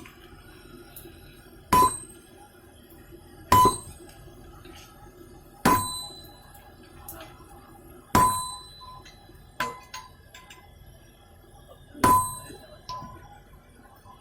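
Hammer blows on steel on an anvil, each with a short metallic ring: five heavy strikes about two seconds apart, with two lighter blows among the later ones. It is the hand forging of rebar into a crowbar.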